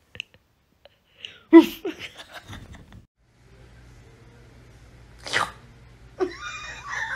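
Two sneezes: a loud one about a second and a half in, then a shorter, sharper one a little past five seconds.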